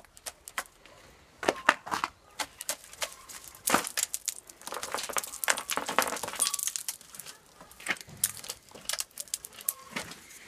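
Ice being cracked and broken off a frozen motorbike's frame: a run of sharp cracks and crunches, with shards clinking onto concrete, densest from about four to seven seconds in.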